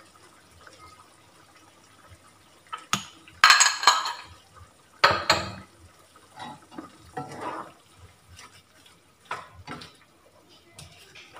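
Cookware clatter: clicks and knocks of a bowl and utensils against a frying pan, loudest about three and a half seconds in, then a wooden spatula scraping in the pan as it stirs the meat.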